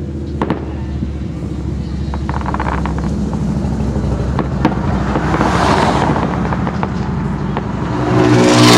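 Distant aerial fireworks: a few sharp bangs of shell bursts over the steady low rumble of a running vehicle engine. Near the end a louder rushing swell comes in as the engine noise rises.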